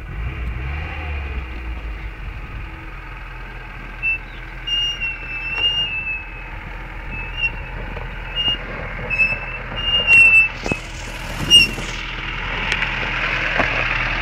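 Jeep engine running low as the vehicle comes down a steep dirt slope, its brakes giving a dozen or so short high squeals over several seconds. Near the end come a few sharp knocks, then a louder rumble of engine and tyres as it arrives close by.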